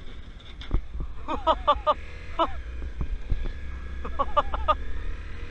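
Honda CRF250L's 250 cc single-cylinder engine running at low speed under a steady low rumble. Twice, a voice cuts in with a quick run of four or five short repeated calls.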